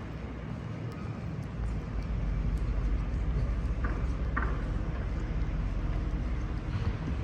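Outdoor city background noise: a steady low rumble, with two short higher-pitched sounds about four seconds in.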